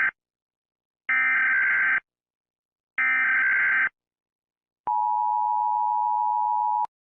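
Emergency Alert System tones. The tail of one burst of the SAME digital header is followed by two more bursts, each a raspy electronic warble about a second long, with about a second of silence between. About five seconds in comes the two-tone attention signal, held steady for about two seconds before it cuts off.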